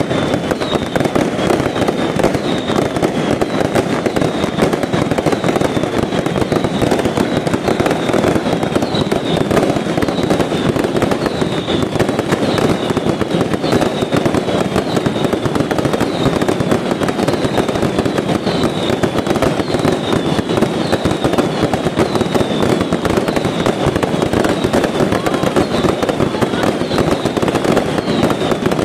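Pyrotechnic fireworks display: a dense, unbroken crackling and popping. Short falling whistles repeat a little more than once a second over it.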